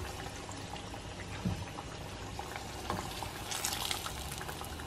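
Hot oil sizzling and bubbling around battered pickle spears deep-frying in a pan, with faint crackles throughout and a few light clicks from metal tongs. The sizzle brightens briefly about three and a half seconds in as a spear is lifted from the oil.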